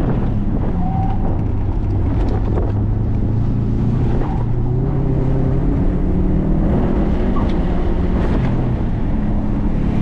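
Subaru WRX STI's turbocharged flat-four engine pulling hard, heard from inside the cabin, its note rising and falling several times as the car accelerates and slows on track, with wind and road noise underneath.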